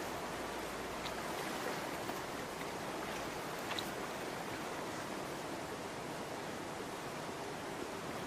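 Steady rush of flowing stream water, with a couple of faint ticks about one and four seconds in.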